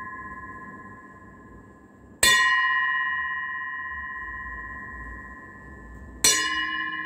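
Polished bronze (bell-metal) bowl struck twice, about four seconds apart, each strike ringing on with long, clear tones that fade slowly. At the start the ring of an earlier strike is still dying away.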